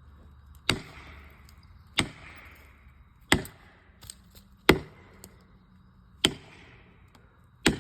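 Felling wedge being driven into the back cut of a tree with six heavy, evenly spaced strikes, about one every second and a half, each with a short ringing tail.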